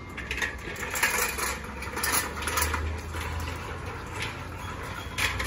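Mild-steel expandable scissor barricade being pulled open, its steel strips and pivot joints clinking and rattling irregularly as it extends. A steady low rumble runs underneath.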